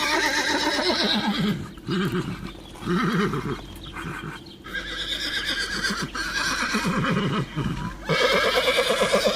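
Horse whinnying, several long neighs one after another.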